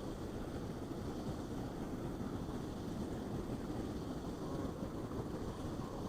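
Steady rushing of water from a mill dam waterfall, an even low-pitched wash with no distinct events.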